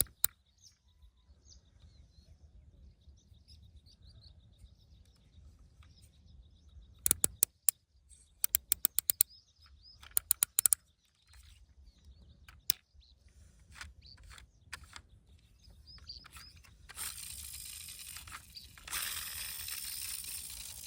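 Quick runs of sharp plastic clicks and rattles, several clusters a few seconds apart, then a steady rustling hiss from about 17 seconds on; faint bird chirps sound in the background early on.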